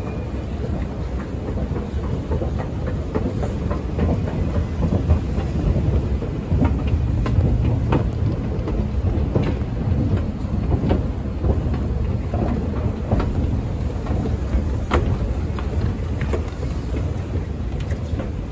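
Busy railway station concourse ambience: a steady low rumble with many scattered faint clicks.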